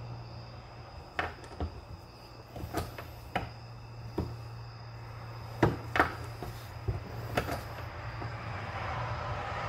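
Scattered sharp metallic clicks and knocks from a single-stage reloading press being handled, as the seating die is turned in and the handle worked to seat a bullet in a 500 S&W Magnum case; the loudest pair of clicks comes about halfway through. A steady low hum sits underneath.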